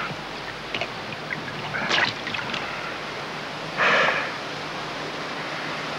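Scuba diver breathing underwater through a regulator: short hissing breaths about two seconds apart, with bubbling and clicks around the first.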